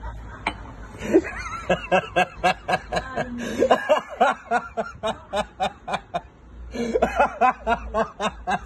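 A person laughing hard in quick, rhythmic 'ha-ha' snickers, several a second. The laughter starts about a second and a half in, breaks off briefly near the end and then picks up again.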